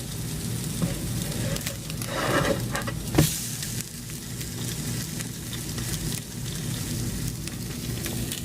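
Pancakes dipped in an egg, milk and maple-syrup mixture sizzling steadily in a frying pan, with one sharp click about three seconds in.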